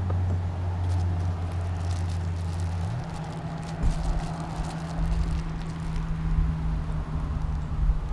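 A steady low mechanical hum. Its deepest part stops about three seconds in and a higher drone carries on, with low rumbles and faint crinkling of a plastic bag being handled.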